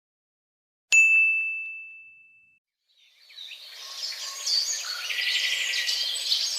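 A single bright bell-like ding about a second in, ringing out and fading over a second and a half. From about three seconds in, birds chirping.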